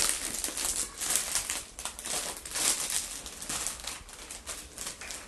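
A crisp packet crinkling and rustling in irregular spurts as it is handled, opened and rummaged through by hand.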